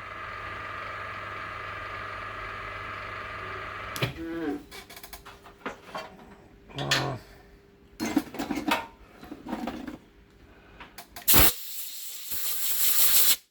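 Milling machine motor humming steadily, then switched off about four seconds in with a short falling whine. Scattered metal clanks and knocks follow, with a loud rushing hiss for the last couple of seconds.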